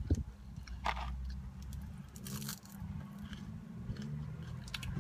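A person chewing food close to the microphone, with one sharp crunch about a second in.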